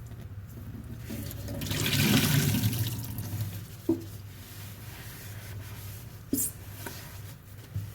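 Soapy sponge being squeezed or rinsed, water gushing and splashing for about a second and a half. A few short clicks follow, over a steady low hum.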